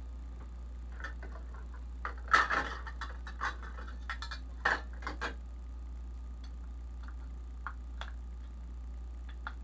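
Handling noises at a kitchen table: a run of knocks and clicks from about one to five seconds in, loudest a little after two seconds, then a few light ticks as a wrapped block of butter is handled. A steady low hum sits underneath.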